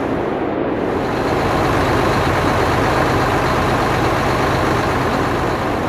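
Heavy engine running steadily with a low hum: a dubbed locomotive engine sound effect.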